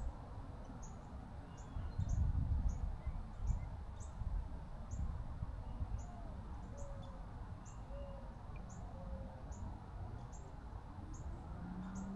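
Outdoor pond ambience: a short, high chirp repeating about twice a second, over a low rumble.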